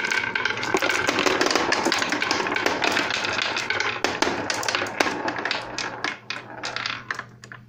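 Several glass marbles rolling and clattering down a homemade wooden and cardboard marble run, a dense stream of clicks and rattles. The clatter thins out near the end as the last marbles come to rest.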